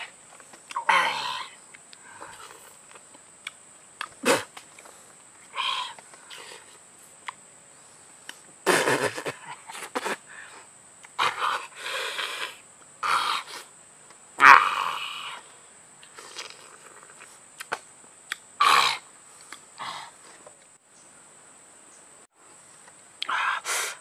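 A man gasping and hissing in short breathy bursts every second or two as he eats hot raw green chili peppers, with a few sharp clicks among them. A steady high insect drone runs behind and stops a few seconds before the end.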